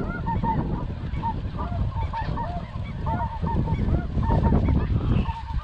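Many overlapping short, high-pitched calls of snow geese, several a second, over a low rumble.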